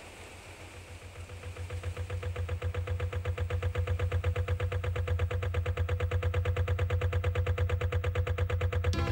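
Narrowboat diesel engine chugging at a steady, even beat, fading in over the first few seconds and then holding steady.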